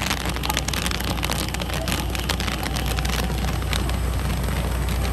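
Kettle corn popping in a large steel pot, kernels bursting in a dense, rapid crackle in the hot sugar as it is stirred, over a steady low hum.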